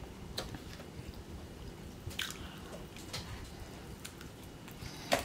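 Close-up mouth sounds of a person eating battered fried food: bites and wet chewing, with several short sharp clicks spread through, the loudest near the end.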